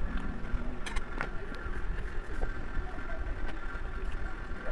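Close-miked eating sounds of someone chewing chicken picked off with her fingers: a few short, sharp mouth clicks and smacks, the clearest about a second in, over a steady low rumble of background noise.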